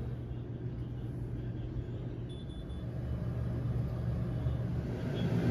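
Steady low rumble and hum of background machinery, with no other activity.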